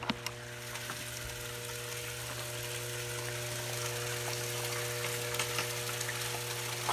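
Water pouring from a PVC return pipe into a plastic aquaponics fish tank, a steady splashing hiss, over the steady hum of the system's water pump. A couple of sharp clicks at the start.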